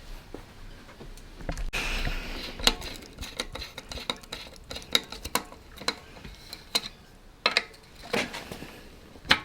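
Metal bike parts and tools clinking and clicking during hands-on assembly of a mountain bike, with irregular sharp taps and a brief rustle about two seconds in.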